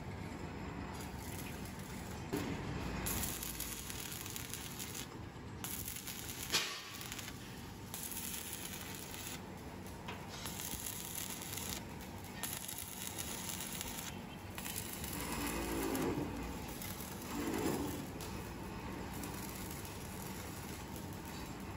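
Stick welding on a steel air-compressor tank: the electrode's arc crackles and hisses in stretches of a few seconds, stopping and restarting several times. A single sharp tap about a third of the way in is the loudest moment.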